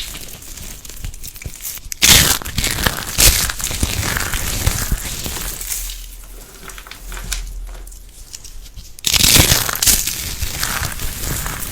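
Crisp crackling and crunching as a brittle material is squeezed and broken apart, with sudden louder bursts about two seconds in and again near the end.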